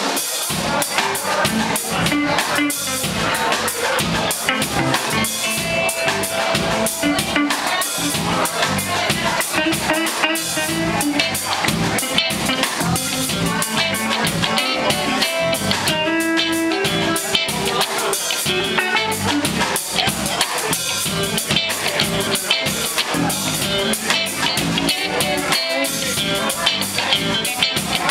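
Live rock band playing: electric guitars over bass guitar and a drum kit, with steady drum hits throughout and held guitar notes.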